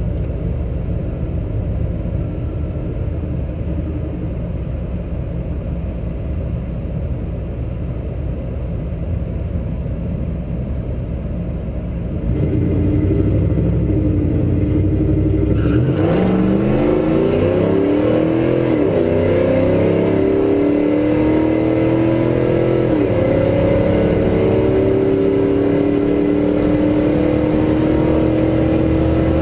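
Nitrous-fed drag truck's engine heard from inside the cab, idling with a low rumble that gets louder about twelve seconds in. About sixteen seconds in it launches: the engine pitch climbs steeply, drops back at a gear change about three seconds later and again about seven seconds later, then pulls up steadily through the end.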